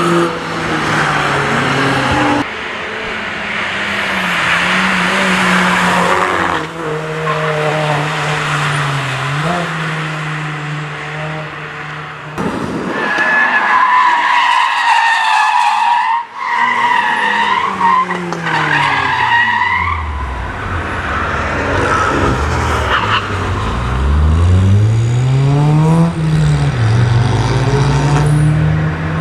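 Car engines running hard as cars pass at speed, in a series of short clips that cut off abruptly. Near the middle, tyres squeal for several seconds as a car slides through a corner. Near the end, an engine's pitch rises and falls repeatedly as it revs up and down.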